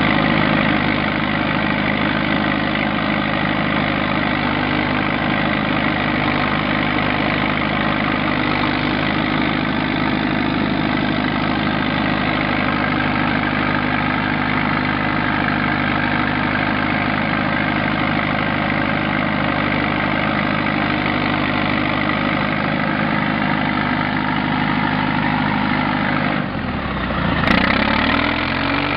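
Tracked bulldozer's diesel engine running steadily, heard from on board the machine. Near the end the engine note dips and then climbs back up.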